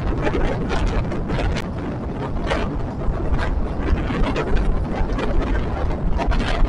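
Local passenger train running, heard from a seat inside the carriage: a steady, loud rumble with frequent irregular clattering knocks.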